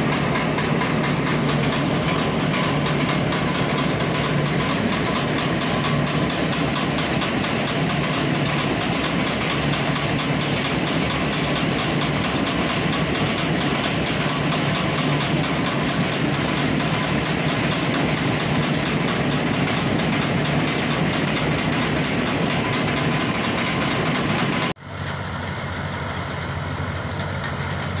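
Tractor-mounted combine harvester running steadily, its diesel engine and threshing machinery giving a dense, even mechanical din with a low hum. Near the end it cuts abruptly to a quieter, duller engine sound.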